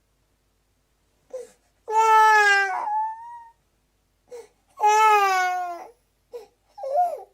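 A baby crying: after a short silence, two long wails of about a second each, each sliding down slightly in pitch, broken by short catching breaths and brief whimpers.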